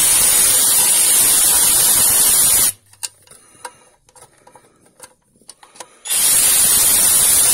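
Compressed-air tool running in two long blasts of a hiss-like rattle, each about two and a half seconds, the second starting about six seconds in.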